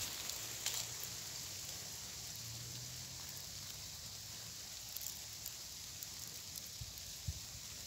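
Quiet woodland ambience: a steady faint hiss with a few light crackles of dry leaves and grass stems brushing against a hand.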